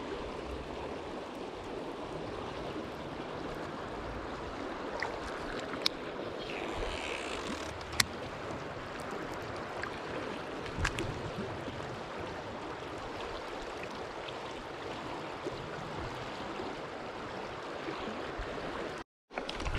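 River current rushing past rocks, a steady wash of water. A few short sharp clicks sound over it, the sharpest about eight seconds in.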